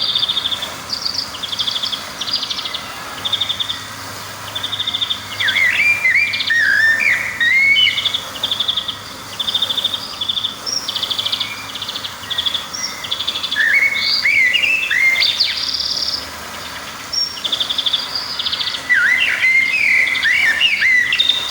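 Small songbirds singing: short, fast trills repeat about once a second, and bursts of warbled, swooping whistles come in three times.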